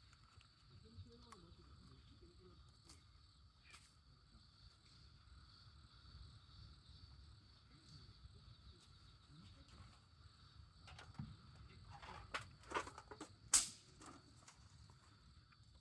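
Faint, steady chirping of insects. About twelve seconds in comes a short run of sharp clicks and cracks, the loudest near the end.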